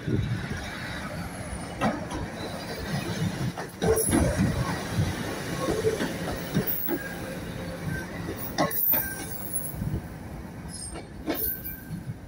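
Class 156 Sprinter diesel multiple unit passing close and pulling away, its underfloor diesel engines running as a steady low rumble, with several sharp clicks and knocks from the wheels over the track.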